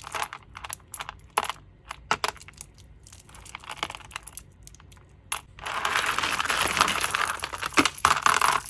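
Dried-out homemade squishy being squeezed and handled, giving sharp crackling clicks. About two-thirds in, it turns into a dense, continuous crackle.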